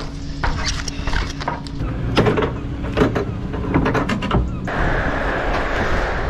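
A run of sharp metal clicks and clanks from the rear of a curtainside lorry trailer as its rear fittings are worked, over a steady low rumble. Near the end a steady rushing noise takes over.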